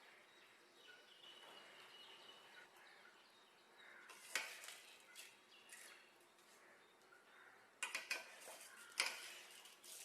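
A metal utensil clinking and scraping against a cooking pot, a few scattered clinks with the loudest near the end, as cooked tomato rice is stirred or served.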